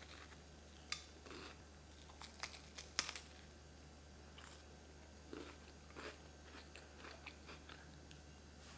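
A person biting into and chewing a crunchy 50-50 cracker-biscuit sandwich. There are a few sharp crunches in the first three seconds, then softer, scattered crunching as the chewing goes on.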